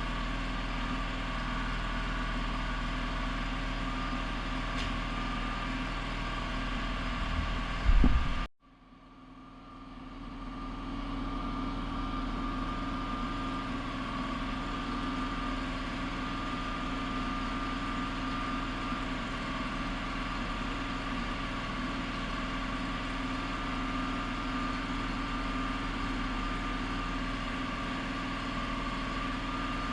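A steady motor or engine hum with a constant pitch. About eight seconds in there is a loud knock, then the sound cuts out abruptly and fades back up over a couple of seconds to the same steady hum.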